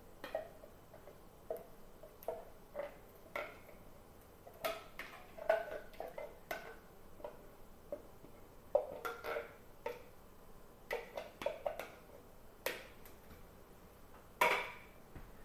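Spatula scraping and tapping inside a metal food can as crushed tomatoes are scraped out into a stainless steel saucepan: irregular short scrapes and clinks, with a louder clatter near the end.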